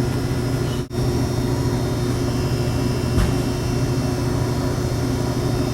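Steady mechanical drone of running machinery, a constant low hum with a thin high whine over it. The sound drops out for an instant about a second in.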